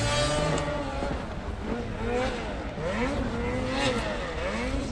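Off-road vehicle engine revving up and down several times, its pitch rising and falling repeatedly as the throttle is worked through the jumps.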